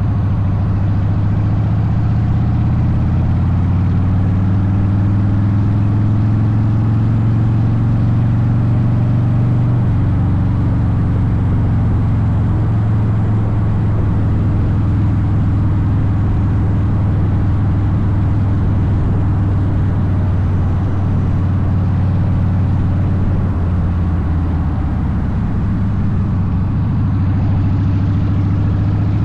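Harley-Davidson Softail Deuce's V-twin running through Vance & Hines exhaust on the road, its pitch shifting a little in the first several seconds and then holding steady.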